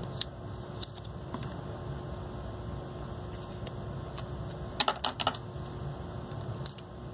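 A few light clicks and taps from handling string, paper and tape, with a quick cluster of three or four about five seconds in, over a steady low room hum.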